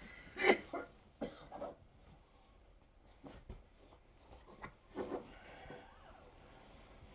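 A woman coughing in short, irregular bursts: a loud cluster in the first second and a half, then fainter coughs and breaths spread through the middle. She says her airways are being blocked.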